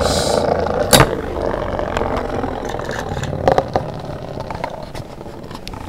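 Metal-wheeled Beyblade spinning tops whirring on a hard surface after launch, with sharp clacks as they strike each other about a second in and again past the middle. The whir fades steadily as the tops lose speed and spin down.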